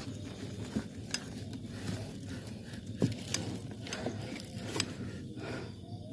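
A few sharp clinks and knocks scattered over steady background noise, the strongest about three seconds in.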